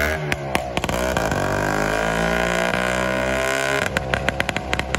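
Greeves two-stroke motorcycle engine running as the bike is ridden off, its pitch dipping and then climbing and shifting with the throttle. Near the end a quick run of sharp clicks sets in over the engine.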